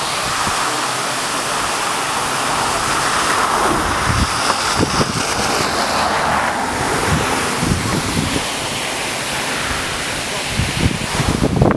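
Burst water main sending a tall jet of water into the air, with a steady rushing hiss of spray and water falling onto the road. A car passes on the wet road about halfway through.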